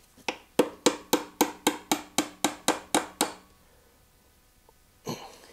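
A hammer tapping quickly about a dozen times, roughly four blows a second, at the front wheel axle of a Honda CB450T motorcycle, knocking the axle into line. A single rougher knock or handling noise follows near the end.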